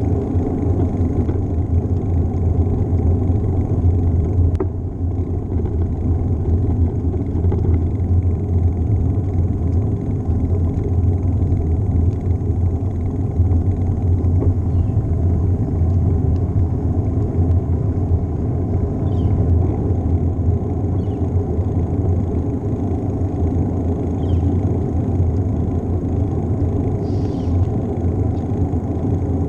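Wind and road noise on a bicycle-mounted GoPro while riding: a loud, steady low rumble of air buffeting the microphone and tyres rolling on pavement.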